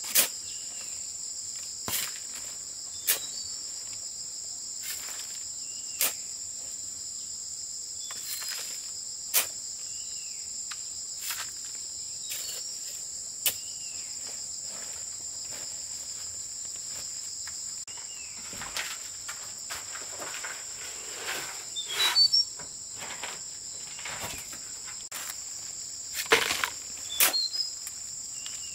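Steady high-pitched insect drone, broken by sharp knocks and scrapes every second or few from a metal shovel working a sand pile, with a louder cluster of knocks near the end.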